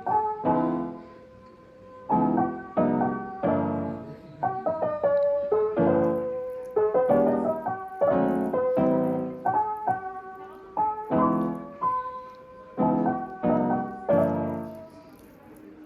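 Background music: a piano playing a slow, gentle tune of decaying chords and single notes at an even pace.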